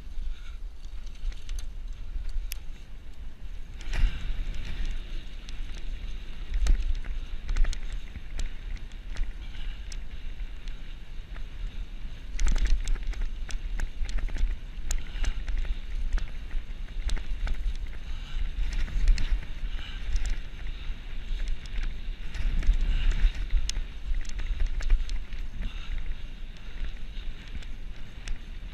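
Mountain bike ridden fast down a rough dirt trail: wind buffeting the microphone as a steady low rumble, with tyre noise on the dirt and scattered knocks and rattles of the bike over bumps, the loudest jolts about four, twelve and nineteen seconds in.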